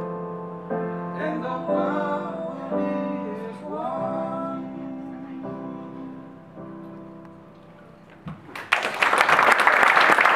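Singing over electric keyboard chords as a song ends: the voice sings a last wavering phrase while the chords ring out and fade, then applause breaks out about eight and a half seconds in.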